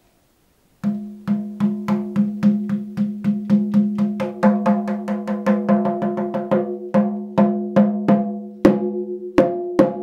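Handmade goatskin tribe shamanic frame drum, its back tied with hide, struck with a beater in a steady beat of about four strokes a second. Each stroke rings with a low pitched tone, and the beat slows to single, spaced strokes near the end.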